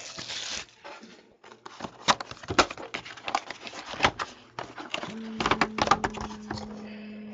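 Cardboard trading-card boxes being handled: a string of taps, knocks and scrapes as boxes are picked up, shuffled and set down on a table. About five seconds in a steady low hum starts and runs on under the knocks.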